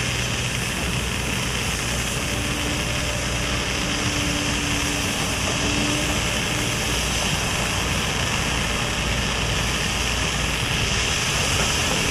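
Lesli All Inclusive 120 ground fountain firework burning, a steady hissing spray of sparks.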